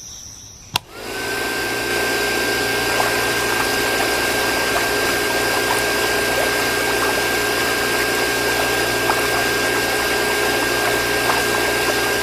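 Small DC motor water pump switched on with a click, spinning up with a brief rising whine, then running steadily with a high motor whine and a rushing hiss.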